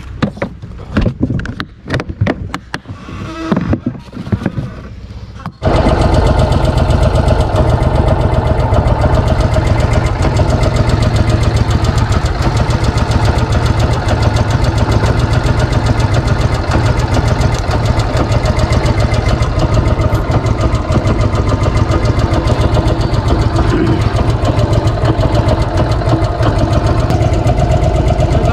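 Scattered knocks and clatter, then about five seconds in a boat's engine comes in suddenly and runs loud and steady.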